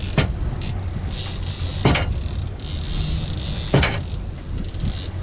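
Suzuki outboard engine running steadily, with a sharp knock about every two seconds, four in all, from the gaff swinging and knocking on the boat.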